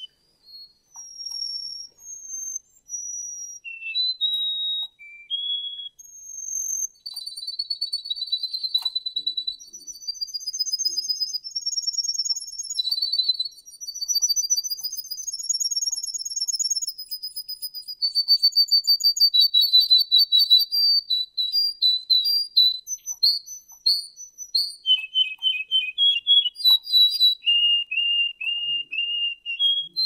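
Russian song canary singing a long phrase: separate clear whistled notes at changing pitches for the first few seconds, then rolling trills, then fast repeated notes, dropping to a lower trill near the end.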